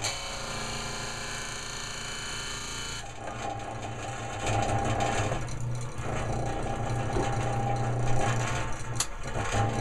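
Old electric disc sander running steadily under load, a 2x4 forced hard against its spinning disc without slowing it. About three seconds in the wood comes off the disc, and the motor runs on with a steady hum.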